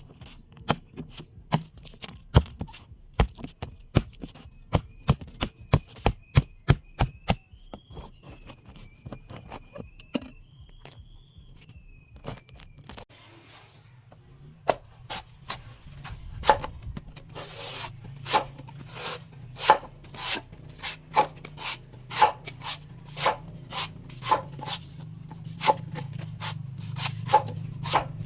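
A blade chopping into a young coconut's husk: a run of sharp strikes about two a second, a few seconds of only occasional cuts, then a second steady run of strikes over a low hum.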